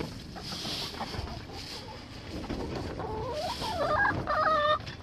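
Domestic hens clucking, rising in the last second or two into louder, drawn-out squawks.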